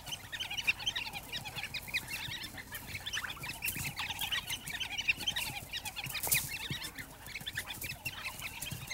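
A pack of African wild dogs twittering: many short, high-pitched chirps overlapping without pause. These are the bird-like calls the pack makes during its greeting and bonding ritual.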